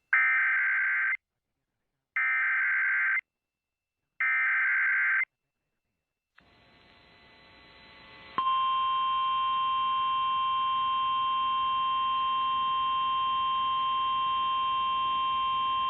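Emergency Alert System signal over AM radio, announcing a tornado warning. It opens with the three SAME header data bursts: harsh, screeching digital chirps, each about a second long, two seconds apart. After a short pause a faint hiss fades in, and about eight seconds in the steady EAS attention tone begins and holds.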